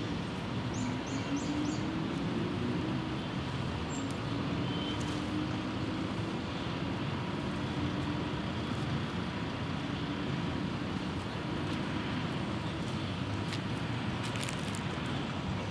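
Steady city traffic rumble with a vehicle engine droning and shifting slowly in pitch. A quick series of four short bird chirps comes about a second in, and a few sharp clicks come near the end.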